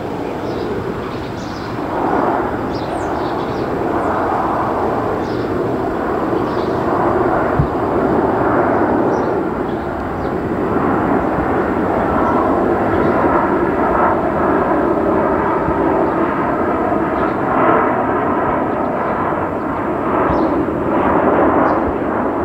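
Boeing P-8A Poseidon's twin CFM56 turbofan engines passing overhead: a steady jet rumble that grows slightly louder, with a faint whine from about halfway through.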